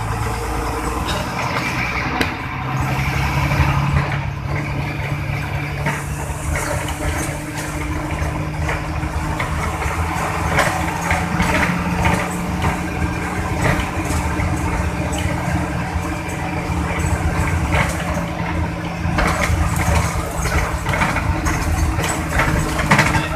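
Intercity bus's diesel engine running steadily with a low drone, through an exhaust modified to snore ('knalpot ngorok'). Scattered rattles sound over it.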